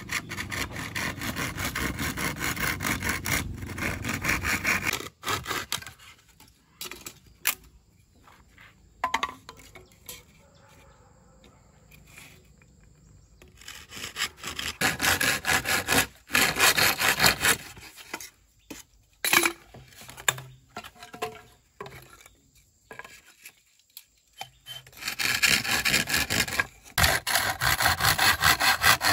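Wood being sawn in three bouts of rapid, even strokes, with scattered knocks and taps in between.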